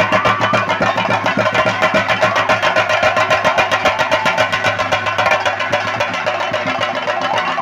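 Several chenda drums played fast and steadily with curved sticks, a dense unbroken run of strokes. This is Theyyam ritual drumming. A faint wavering high tone is heard near the start and again near the end.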